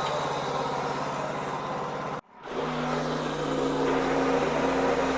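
Wood-Mizer LX55 band sawmill running as it saws through a hard hickory log. The sound cuts out abruptly for a split second about two seconds in, then comes back as a steadier, slightly higher hum.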